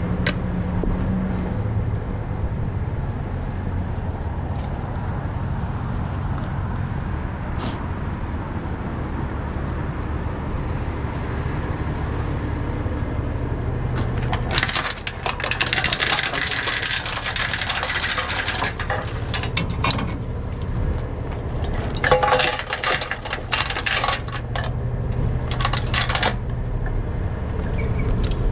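A truck engine idling with a steady low rumble. From about halfway, three spells of metallic clinking and rattling as tow chain and hooks are handled against the wrecker's steel underlift.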